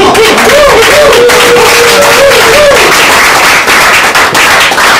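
An audience applauding and cheering loudly. One voice holds a long shout over it for the first three seconds or so.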